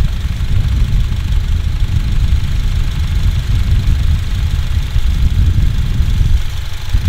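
2011 Honda Civic Si's 2.0-litre four-cylinder engine idling through its aftermarket header and exhaust, a loud low rumble that eases near the end.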